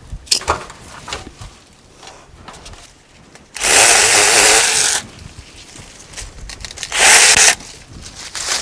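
Compact cordless electric mini chainsaw running in two short bursts: one of about a second and a half a little before the middle, and a shorter one about a second and a half before the end, with light clicks in between.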